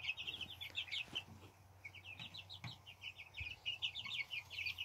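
Young Polish and Faverolles chickens chirping: rapid runs of short, high peeps, with a brief lull about a second and a half in.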